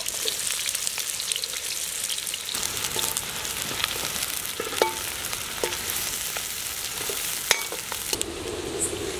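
Sliced onions sizzling in hot oil in a large metal kadhai while being stirred, with a metal spatula scraping and clinking sharply against the pan a few times. The sizzle drops away near the end.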